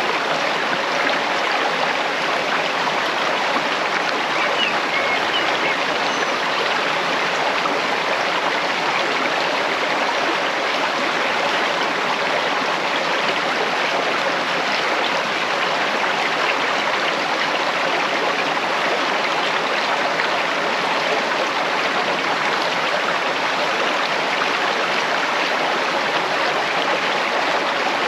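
Steady rushing of a flowing stream, an even wash of running water with no pauses or changes.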